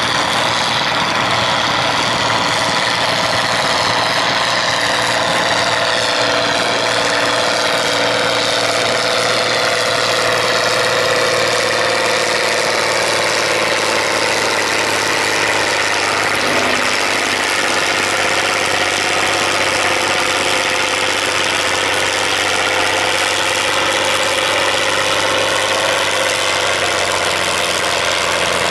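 Farm tractor's diesel engine running hard under load as it drags a tractor-pulling sled, holding a steady note that sags slightly in pitch partway through.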